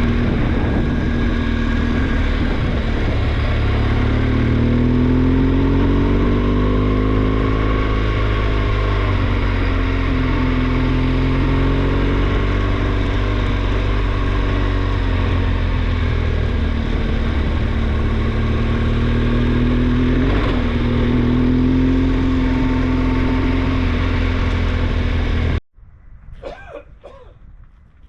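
Motorcycle engine running under way with wind rush; the engine pitch rises and falls slowly several times, and the sound cuts off abruptly near the end.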